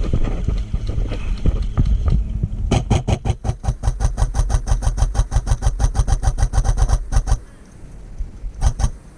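Airsoft gun firing on full auto: a long burst of rapid, evenly spaced shots lasting about four and a half seconds, then a short burst near the end.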